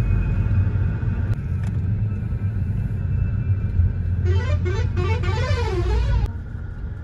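Steady low road rumble inside a moving car. About four seconds in, an oncoming lorry sounds a warbling horn whose pitch swings up and down, for about two seconds as it passes, then cuts off.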